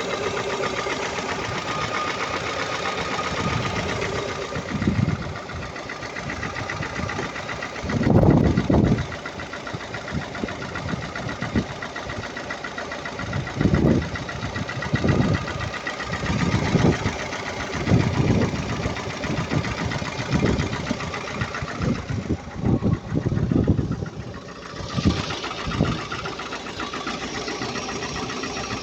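ZMZ-402 inline-four petrol engine running with a knock, its throttle briefly raised several times. The owner does not know what is knocking.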